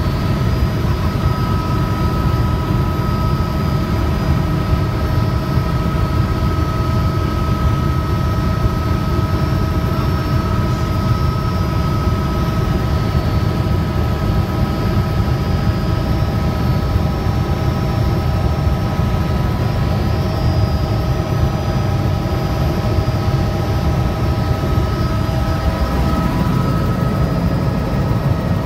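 Helicopter in flight heard from on board: a steady, loud rumble of the rotor and engine, with several steady whining tones above it.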